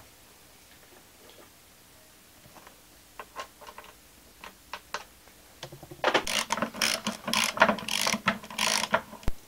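Ratchet wrench clicking in quick runs as a Torx bolt holding the seatbelt retractor is undone. A few isolated clicks come first, then dense ratcheting starts about six seconds in and lasts about three seconds.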